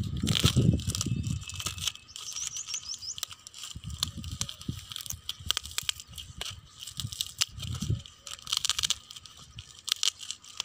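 Parcel wrapping being torn and pulled open by hand, with irregular rips, rustles and crinkling of the white wrapping and a paper slip. A low rumble fills the first second or so, and a bird chirps briefly a couple of seconds in.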